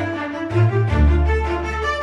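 Background music: bowed strings, with violin and cello over a low bass line.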